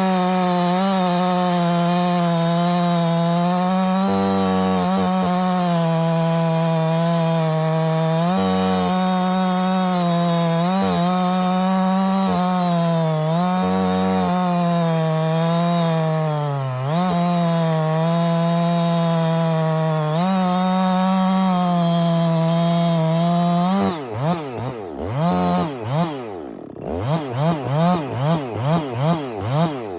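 Ported Jonsered 2071 chainsaw, fitted with a 75cc Husqvarna XPW cylinder and a 32-inch bar, running at full throttle through a dry eucalyptus log, its pitch sagging slightly under load several times. Near the end it is off the cut, and the throttle is blipped repeatedly so that the engine revs up and drops back over and over.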